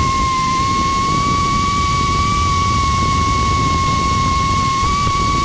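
Brushless motors and propellers of an FPV Cycle Cinesplore quadcopter giving a steady high-pitched whine in flight, with a low noisy rumble underneath. It is heard from the drone itself, through its onboard camera.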